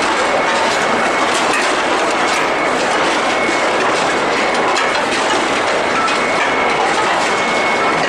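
Heavy chain conveyor running: a steady, dense metallic clatter of chain links, with a faint high steady whine behind it.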